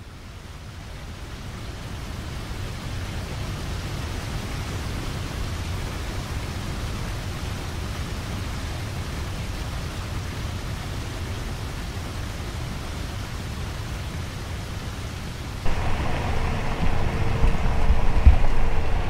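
Steady rushing noise, heaviest in the low end, fading in over the first two seconds. About sixteen seconds in it cuts suddenly to louder, uneven outdoor sound.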